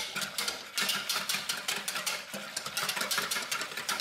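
Wire whisk beating a thin coconut-milk marinade in a plastic bowl: quick, even strokes, about five or six a second, with the wires clattering against the bowl and the liquid splashing.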